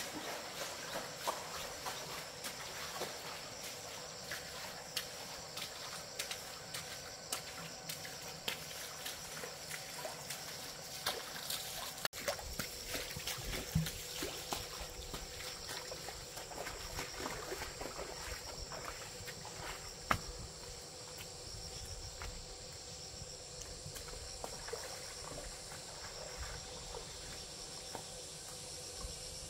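Shallow stream water trickling, with many small scattered clicks and splashes.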